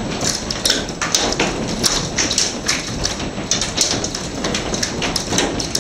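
Heavy hail coming down, a dense, irregular clatter of many sharp hailstone impacts over a steady rain-like hiss.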